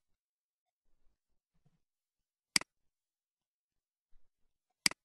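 Two sharp computer mouse clicks about two seconds apart, each a quick press and release, placing the end points of sketch lines.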